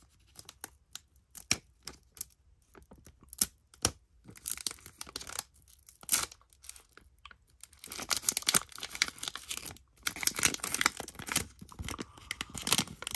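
Foil booster pack wrapper torn open by hand in short pulls, then crinkling as it is handled, the crinkling busier and louder in the last few seconds.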